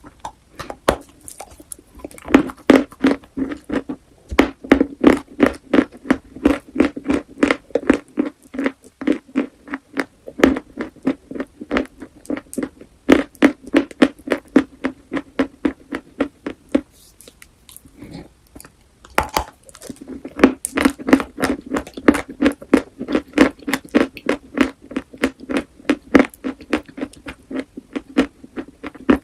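Close-up crunching of chalk being chewed: a rapid run of sharp crunches, about three to four a second. It breaks off for a couple of seconds about two-thirds of the way through, then a sharp bite starts the chewing again.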